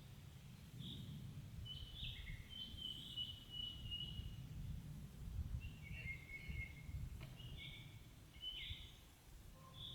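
Small birds chirping and trilling in many short phrases, over a steady low rumble.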